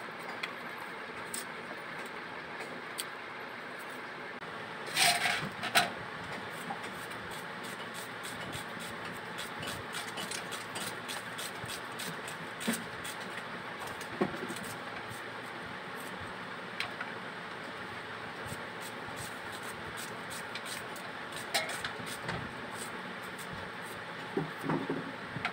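An onion being peeled and sliced on a boti, a curved blade fixed upright on a wooden base: scattered soft cuts and small taps as pieces drop onto a steel plate, over a steady background hiss. There are a few louder knocks about five seconds in.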